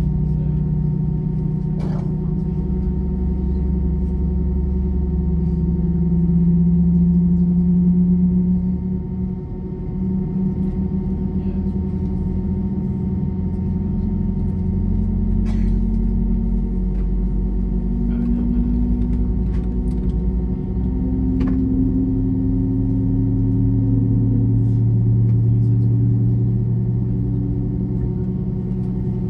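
Cabin noise inside an Airbus A320-232 with IAE V2500 engines: a steady low drone with humming tones that slowly shift in pitch, and a few faint clicks.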